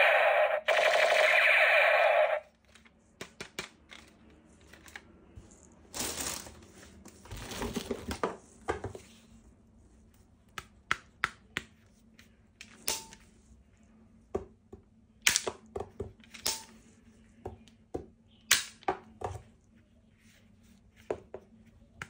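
Music that cuts off about two seconds in, then scattered sharp clicks and clacks with a few short rustles: plastic toy gun parts and packaging being handled during unboxing.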